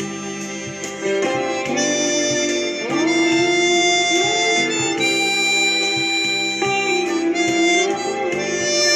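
Hohner chromatic harmonica playing a slow melody with long held notes, some sliding in pitch. Behind it runs a backing track with guitar and a steady beat.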